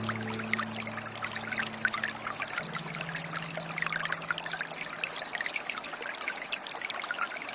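Water trickling and splashing, like a small stream over stones: a steady rush full of small droplet splashes. Soft low held notes sound beneath it and fade out about five seconds in.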